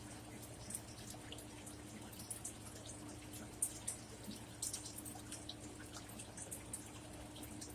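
Quiet chewing of crispy melted-cheese taco shells: scattered small wet mouth clicks and crunches, over a faint steady hum.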